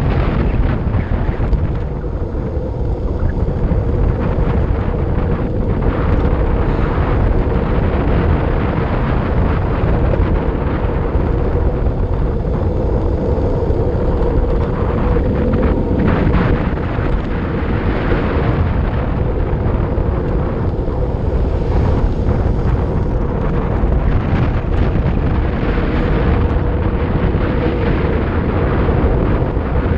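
Heavy wind noise buffeting an action camera's microphone on a road bike descending at speed. It is a steady, loud rush with a faint even hum beneath it.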